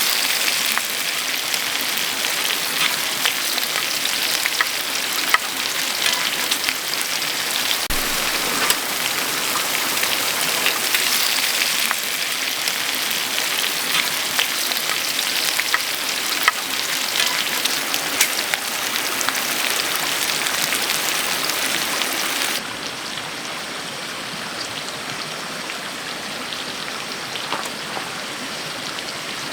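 A steady patter of water with scattered small ticks. About two-thirds of the way through it drops in level and loses its high hiss.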